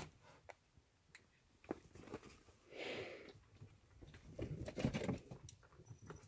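Kittens scuffling on a quilted bedspread: faint rustling of fabric and scattered soft taps, with a longer rustle about three seconds in and a busier patch of rustles and taps near five seconds.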